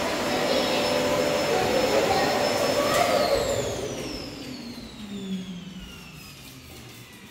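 Steel canister vacuum cleaner running with a loud rushing whine. About three seconds in it is switched off, and its motor whine falls steadily in pitch and fades as it winds down.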